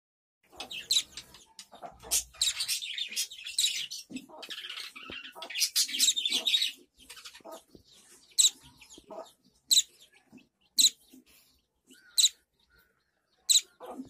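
A fledgling songbird chirping: a busy run of rapid high-pitched chirps for the first several seconds, then single sharp chirps a second or so apart.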